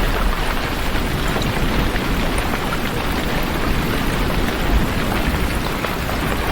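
Heavy rain falling steadily, a dense even hiss with a deep low rumble underneath.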